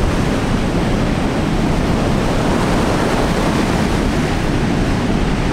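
Steady rush of breaking ocean surf, with wind buffeting the microphone.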